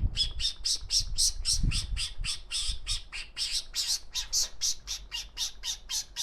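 A person imitating a bird's squawking call: a fast, even run of short, sharp, high-pitched squawks, about five a second.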